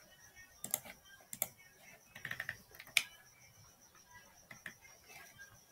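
Scattered clicks of a computer keyboard and mouse, single sharp taps about a second apart with a short run of taps around two and a half seconds in.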